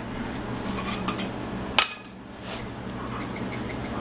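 A glass spice jar clinking lightly as dried herbs are shaken from it over a ceramic mixing bowl, with one sharp clink a little under two seconds in. A steady low hum runs underneath.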